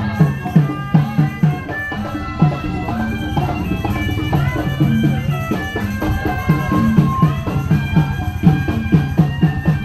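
Betawi traditional music of the kind played for ondel-ondel giant puppets: a melody over a steady, repeating pattern of drum hits.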